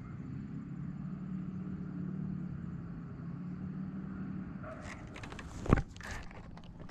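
A low, steady motor hum for the first few seconds, then a run of clicks and knocks of handling with one sharp, loud thump.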